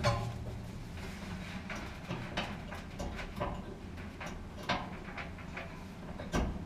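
Irregular light clicks and knocks of metal and plastic parts being handled inside a dryer cabinet while the drive belt is fitted back around the drum and pulley, with a louder knock near the end.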